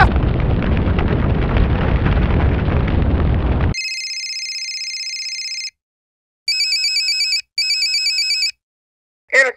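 Rushing noise of a burning fire sound effect, cut off suddenly, then an electronic telephone ringing: one long ring followed by a double ring, the emergency call coming in.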